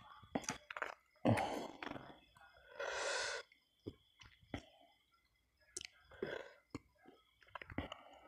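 Close-miked mukbang eating sounds: a person chewing spiced chicken, with wet mouth clicks and smacks. Two breathy rushes of noise come about a second and a half in and around three seconds in.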